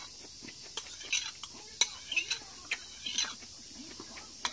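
Metal spoons clinking and scraping against porcelain bowls during a meal, a scatter of short, irregular clicks.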